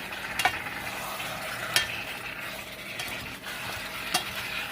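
Pork sizzling as it stir-fries in a wok, with a steady frying hiss. A cooking utensil stirs it and knocks against the pan three times, sharply.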